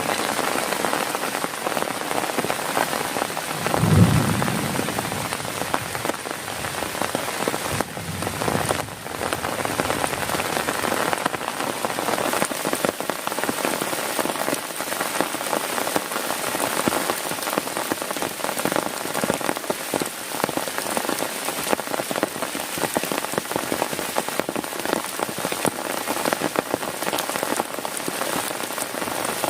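Heavy rain falling on a tent, a dense, steady patter, with a single short low thump about four seconds in.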